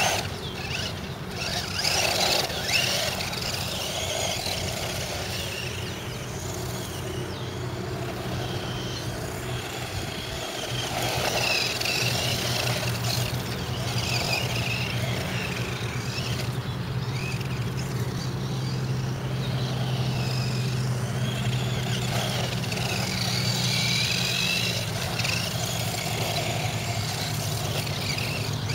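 Electric motor of a Thunder Tiger Jackal 1/10-scale 4WD RC desert buggy whining up and down in pitch as the buggy speeds up and slows on a dirt track, over a steady low hum.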